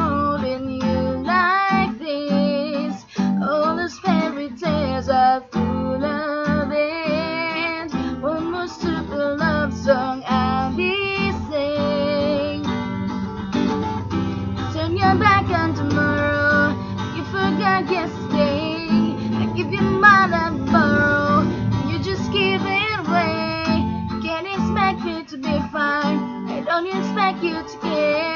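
Song performed with a strummed acoustic guitar and a singing voice.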